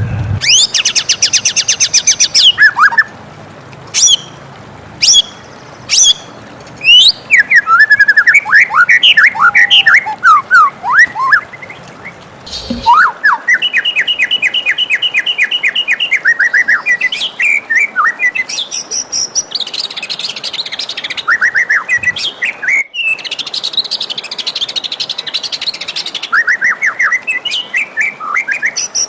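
White-rumped shama singing a loud, varied song: a fast buzzy trill at the start, a few sharp single notes, then runs of quick rising and falling whistled notes and rapid repeated phrases.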